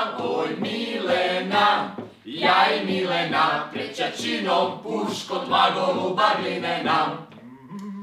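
A mixed group of men's and women's voices singing together in chorus. The singing breaks briefly about two seconds in and dies away near the end.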